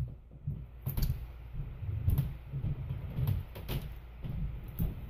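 Hands working scotch tape and a paper stencil onto a stretched canvas: irregular low bumps and knocks against the canvas and table, with a sharp click at the start and a few brief clicks and rustles.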